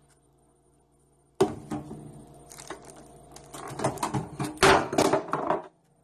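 A sudden clunk as the microwave door is opened, then a string of knocks and clatter, loudest near the end, as a glass bowl of beaten eggs falls off the top of the microwave onto the granite counter and spills, with the phone being jostled.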